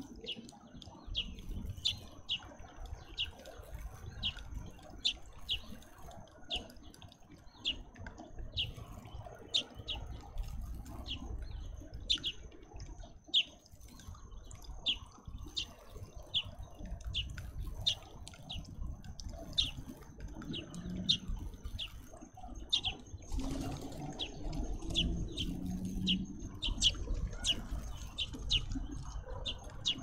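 Grey-headed sparrow chirping over and over in short, high, falling chirps, about one or two a second, as the young sparrows do when calling for food. Underneath run a steady thin high whine and a low rushing background.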